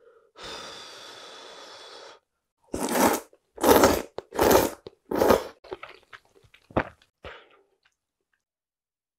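A person blows on a chopstick-load of hot noodles as a steady breathy hiss for about two seconds. Then come four loud slurps as the noodles are sucked in, followed by softer wet chewing.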